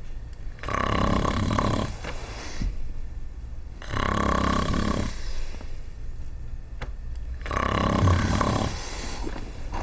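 A person snoring loudly, three long snores spaced a few seconds apart.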